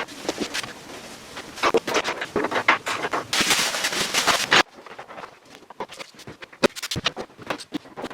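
Workshop noise: irregular clattering clicks and knocks with bursts of hiss, cut off suddenly about halfway through, followed by sparser scattered clicks.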